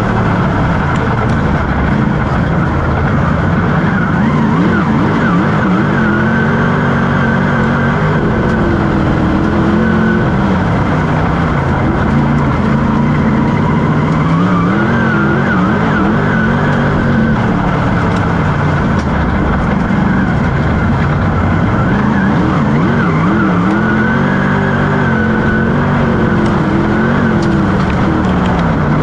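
Dirt-track race car engine heard from inside the cockpit at racing speed, its pitch climbing on each straight and dropping as the driver lifts off into each turn, over and over every several seconds, with a constant rush of wind and road noise underneath.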